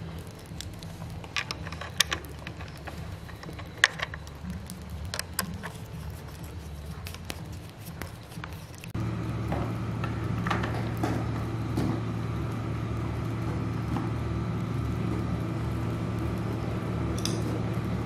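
Hand tools and chainsaw parts clicking and tapping against the saw's plastic housing during reassembly, a few sharp clicks every second or two, over a low steady hum. About halfway through, the hum becomes louder and steadier.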